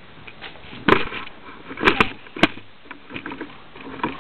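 Camera and tripod being handled: a few sharp knocks and clicks about a second in and around two seconds in, with light rustling and ticks between.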